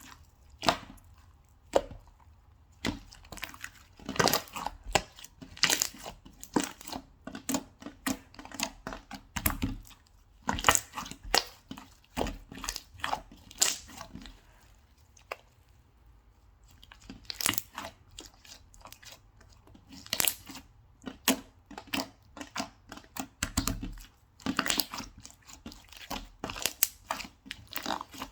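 Slime being squished and pressed by hand, making rapid crackling, popping clicks and crinkling, with a quieter stretch about halfway through.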